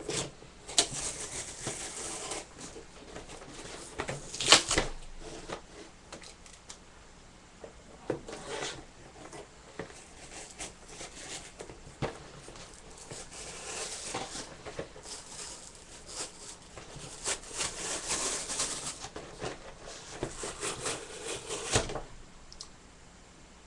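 Stiff plastic blister packaging being cut along its edge with a knife and worked open: irregular crinkling and scraping of plastic with sharp snaps, the loudest about four and a half seconds in and another near the end, after which it goes quiet.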